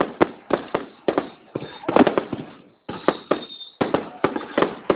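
Aerial fireworks bursting in rapid, irregular succession: a string of sharp bangs, several a second, each with a short echoing tail, with a brief pause just before three seconds in.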